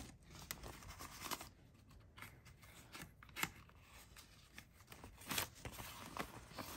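Paper banknotes rustling and crinkling as a handful of bills is pulled from a binder pouch and fanned out, with scattered short crisp flicks of paper.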